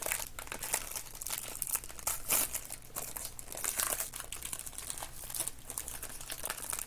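Trading card pack being handled: the wrapper crinkling and rustling, with irregular small crackles as cards are pulled and sorted.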